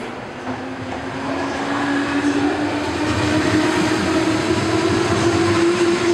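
JR West electric commuter train running close past, its motor whine rising steadily in pitch as it gathers speed over the rumble of the wheels on the rails, growing louder.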